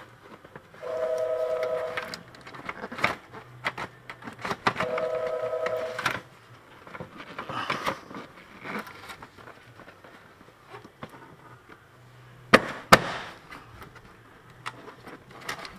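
Hard-plastic washer fluid reservoir being worked into its mounting points in the wheel well: scattered knocks and clicks, then two sharp loud clacks close together about twelve and a half seconds in. About a second in and again about five seconds in, a steady two-note tone sounds for about a second each time.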